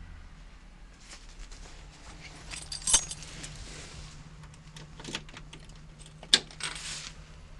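Sharp clicks and short metallic jingling as the school bus driver's dash switches and controls are handled. The loudest clicks come about three seconds in and again a little past six seconds, over a steady low hum.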